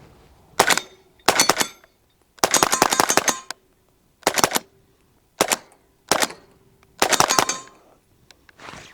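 Palmetto State Armory Jakl .300 Blackout pistol firing in quick strings to empty the magazine: a single shot, then several short groups and two longer rapid runs of shots. The pistol cycles round after round without a stoppage, the sign that its warranty repair has fixed it.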